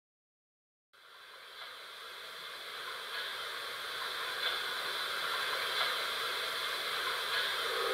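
ESU LokSound 5 XL sound decoder in an LGB model of HSB 2-10-2T 99 7237-3 playing a standing steam locomotive's recorded steam hiss through the model's speaker. The hiss fades in about a second in and grows steadily louder.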